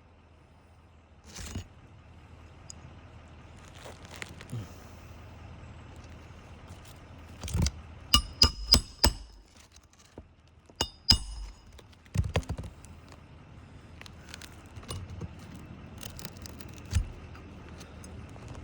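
Hammer blows on a metal shingle-nailing tool driving roofing nails under a lifted asphalt shingle. A quick run of four or five ringing metallic strikes comes about eight seconds in, followed by single blows and light scraping.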